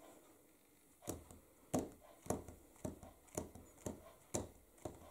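Clear acrylic stamp block tapped again and again onto a Memento ink pad to ink the stamp: about eight light taps, roughly two a second, starting about a second in.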